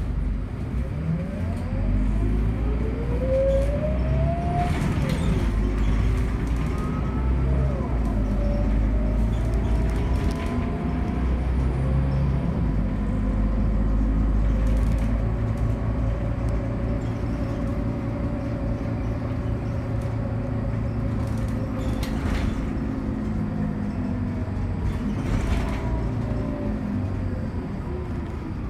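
Scania K94UB bus with a loud ZF automatic gearbox whining over the engine's low rumble, heard from inside the cabin. The whine climbs as the bus accelerates, drops back at a gear change about five seconds in and climbs again, then holds a long steady note at cruising speed.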